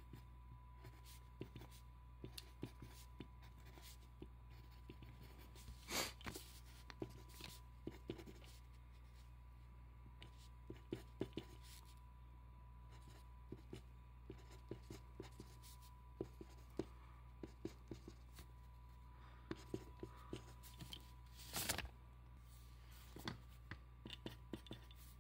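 Handwriting on paper: faint, scattered scratches and taps of a writing stroke, with two louder brief scrapes about six seconds in and near the end, over a faint steady hum.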